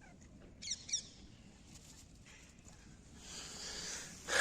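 A small bird calling: a quick run of short, high, falling chirps about a second in. Near the end a rush of noise swells up and peaks sharply.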